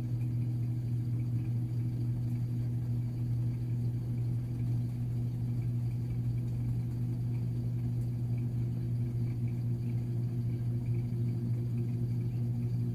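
Samsung top-load washing machine spinning an empty drum, a steady low motor-and-drum hum with no knocking. It is running fairly smoothly at this point rather than shaking violently.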